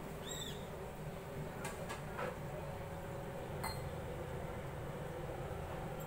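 Steady low background hum with a few faint clicks and one short chirp about a third of a second in.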